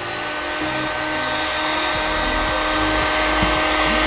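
Electric heat gun blowing steadily, a fan rush with a steady whine, getting slightly louder, as it heats the bearing bore of a front differential housing so the metal expands for fitting the bearing cups.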